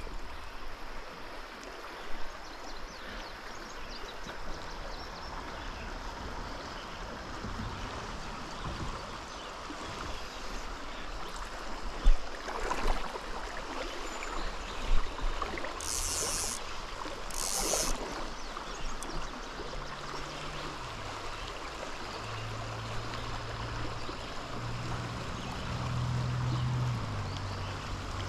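Steady rush of flowing river water, with a couple of short louder knocks or splashes midway.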